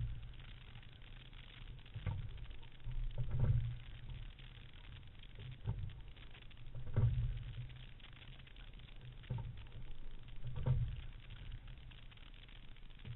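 Fluidesign single scull under way at a slow stroke rate: a pair of low knocks from the sculls and rigging about every three and a half seconds, one stroke after another, over a steady hiss of water along the hull.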